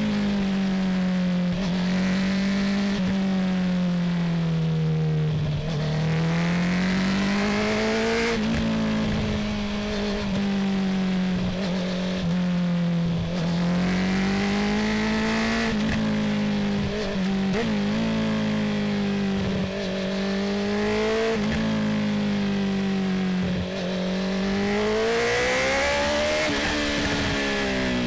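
Honda CB650R's inline-four engine through an Akrapovic full titanium exhaust, heard while riding: a steady exhaust note whose revs rise and fall gently in long, slow swells, with a few brief dips in the sound.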